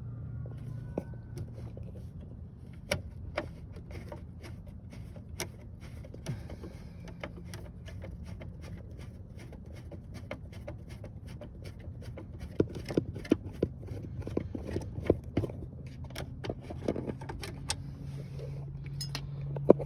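Scattered clicks and light taps of a screwdriver and screws on plastic dashboard trim as the cluster bezel screws are backed out, coming faster and louder in the second half, over a low steady hum.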